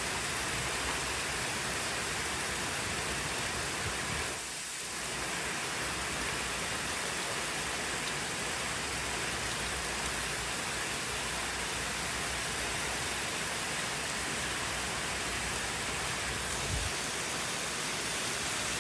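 Heavy hailstorm, marble-sized hail and rain pouring down in a steady dense hiss that dips briefly about four and a half seconds in.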